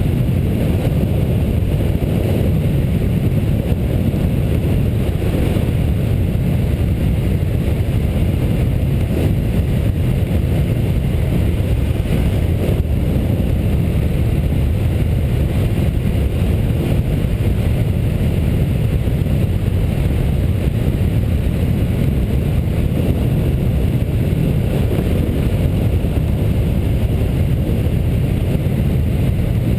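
Motorcycle on the move: a steady rush of wind and road noise on the microphone, with the running engine underneath, unchanging throughout.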